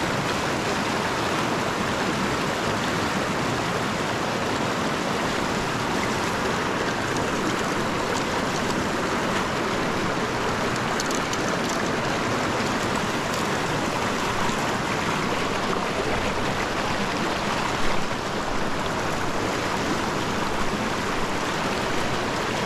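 River water flowing over rocks, a steady noise of running water, with one brief louder bump late on.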